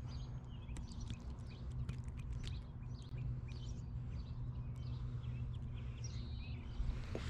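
Small birds chirping and calling, with one short patterned song about six seconds in, over a steady low hum.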